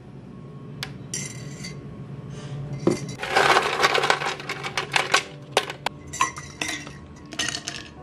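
Ice cubes rattling and clattering as they are pulled from a freezer's ice tray, a dense run of clatter about three seconds in, followed by scattered single clinks. A low steady hum runs underneath.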